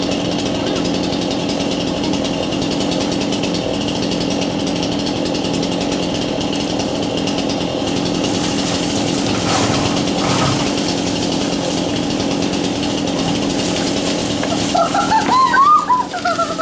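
Chainsaw engine running steadily at a constant pitch, with a voice cutting in near the end.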